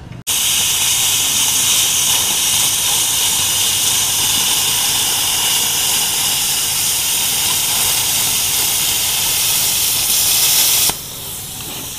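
Plasma cutter cutting through aluminium plate: a loud, steady hiss that starts suddenly and stops abruptly near the end, with a quieter hiss carrying on after it.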